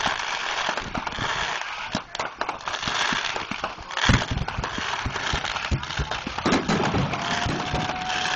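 Fireworks display: a continuous dense crackling of glitter shells, broken by many sharp bangs, the loudest a deep boom about four seconds in.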